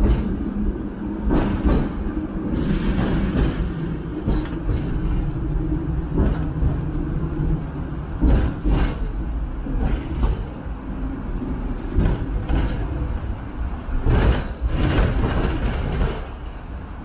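Hong Kong double-decker electric tram running along street track, heard from its upper deck: a steady low rumble with irregular clacks and knocks of the wheels on the rails.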